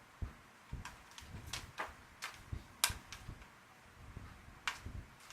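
Small sharp clicks and taps of laptop parts being handled and fitted back into an opened ThinkPad, about eight in all and irregularly spaced, the sharpest about three seconds in.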